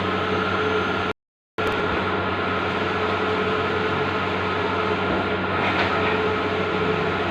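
Bluewin large-format outdoor printer running, a steady whirring hum with constant machine tones. It cuts out briefly a little over a second in, then carries on unchanged.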